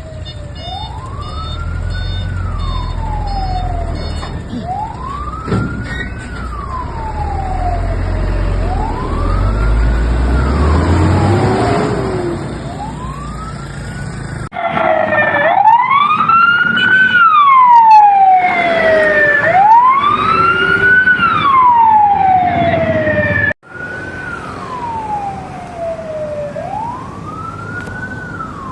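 Fire truck siren wailing: a rising-and-falling wail that repeats about every four seconds, rising quickly and falling more slowly, with a low vehicle rumble underneath in the first half. The sound cuts off abruptly twice and picks up again with the same kind of wail.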